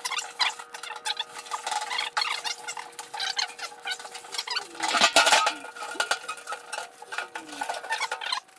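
Cloth rag rubbed hard over a steel VW Beetle hood while it is wiped down with mineral spirits, a fast scrubbing with squeaks. About five seconds in there is a louder clatter as the hood is handled on its wooden sawhorses.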